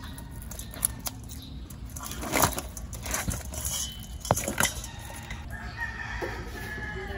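A rooster crowing near the end, over a few scattered sharp knocks.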